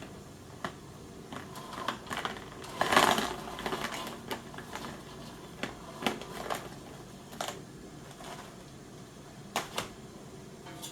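Scattered light clicks and taps, with a louder rustling burst about three seconds in: small handling noises, as of food and dishes being moved around.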